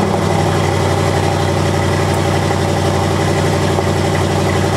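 2023 Porsche Cayenne Turbo GT's twin-turbo 4.0-litre V8 idling steadily through its titanium exhaust just after a cold start. The exhaust valves are not fully open while it stands in park.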